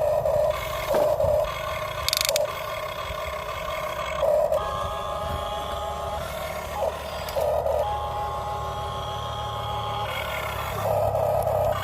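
Small electric gear motors of a Huina 1550 remote-control toy excavator whining in short on-off spurts as it works, with a steadier, longer whine in the middle.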